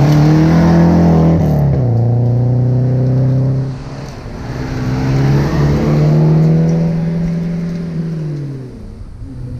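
Rally car engine heard from inside the cockpit, running hard under load with an upshift about one and a half seconds in. Near the middle it briefly lifts off, then revs back up and holds. Near the end it eases off and the revs fall.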